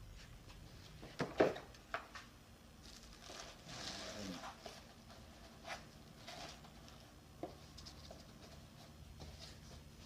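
Cardboard boxes and packaging being handled during an unboxing: a few sharp knocks and taps, the loudest a little over a second in, with a stretch of rustling about three to four and a half seconds in.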